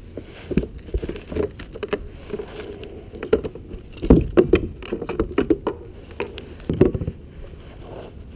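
A just-landed speckled trout flopping on a plastic kayak deck as it is grabbed by hand: a run of irregular knocks and rattles, busiest about halfway through and again a little later.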